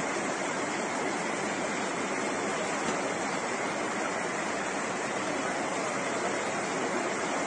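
Fast floodwater rushing down a street in a steady, unbroken torrent.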